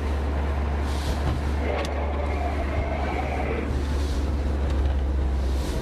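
The Porsche 924S's 2.5-litre four-cylinder engine running, a steady low drone heard inside the cabin, with a single click about two seconds in.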